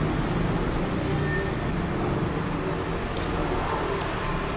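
Steady low rumble of background road traffic.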